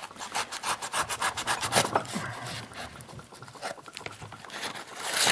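Knife blade sawing and slicing through the tape and cardboard of a shipping box, a quick run of scraping strokes.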